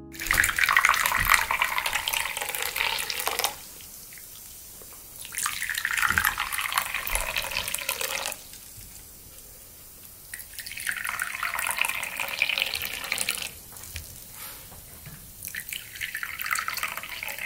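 Tea being poured into cups: four separate pours of about three seconds each, with short pauses between.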